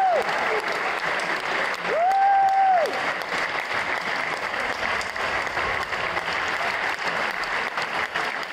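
Audience applauding steadily. About two seconds in, a single high tone rises, holds for about a second and falls away above the clapping.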